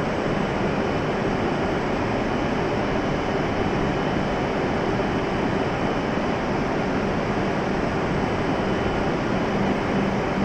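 Steady hum of stationary Shinkansen trains standing at the platform, with a low, even tone that holds throughout.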